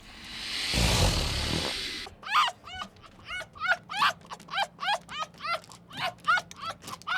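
A rushing noise swells for about two seconds and stops, then a small dog yaps rapidly, about three high yaps a second.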